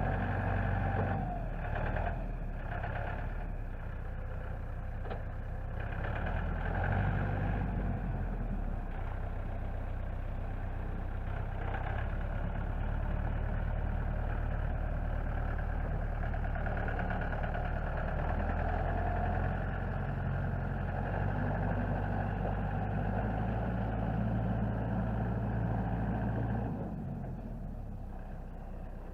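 Tractor engine running steadily while working the loader forks, with a few knocks in the first seconds and the engine easing off near the end.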